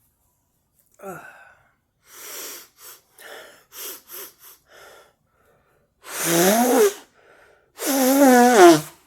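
A woman's congested nose being cleared: a run of short, snuffly bursts, then two loud voiced sneezes near the end, each about a second long and falling in pitch.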